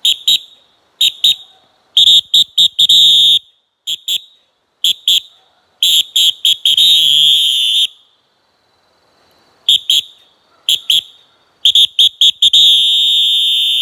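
EVERNEW PE Echo plastic whistle blown in a rhythmic pattern: groups of quick, short, shrill blasts, each group ending in a held blast one to two seconds long, all on one high piercing tone.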